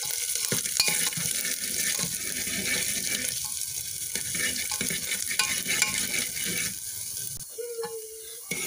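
Chopped ginger and garlic sizzling in hot oil in an aluminium pressure cooker, stirred with a metal ladle that scrapes and clicks against the pot. The sizzle quietens near the end.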